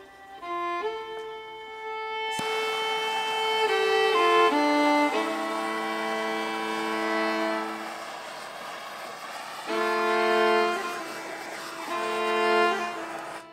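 Background music of a bowed violin playing sustained notes. A steady hiss runs beneath it from about two seconds in and fades out around ten seconds.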